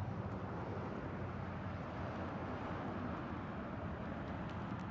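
Steady outdoor background rumble with an even hiss, no distinct event standing out.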